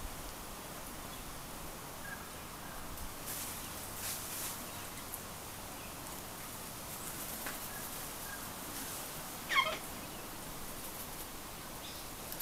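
Sulphur-crested cockatoo giving one short call about three quarters of the way in, over a faint steady background with a few soft rustles before it.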